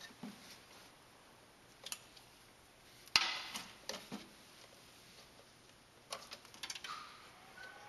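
Hard balls clicking and knocking as they roll through a self-rolling ball tank system: scattered sharp clicks, with one louder knock about three seconds in and a cluster of clicks near the end.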